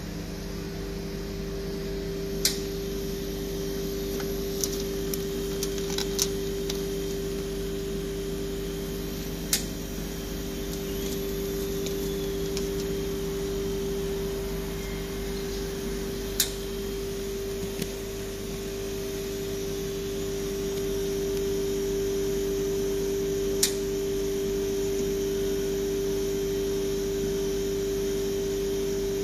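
Launch R1234yf A/C recovery and recharge machine running with a steady, even hum, with a few sharp clicks at separate moments.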